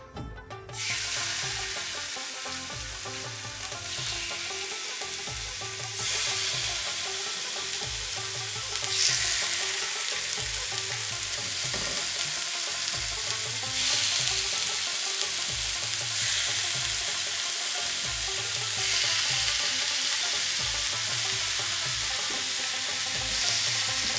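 Marinated chicken sizzling on a hot, oiled grill pan. The sizzle starts suddenly about a second in and gets louder in several steps.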